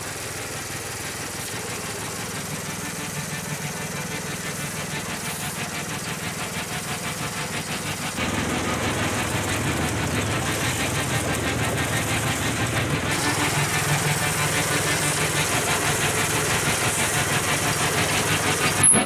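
A small gasoline engine runs steadily with a fast, regular pulse, growing gradually louder and stepping up about eight seconds in.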